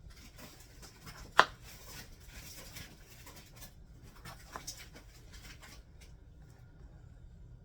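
A kitchen knife cutting tomatoes in half on a cutting board, with soft slicing and handling sounds. A sharp knock of the blade or a tomato on the board comes about one and a half seconds in, and a smaller one at about four and a half seconds.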